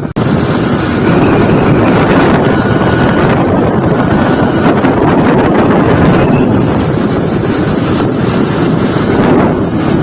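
Motorbike ride: wind rushing hard over the microphone, with engine and road noise underneath.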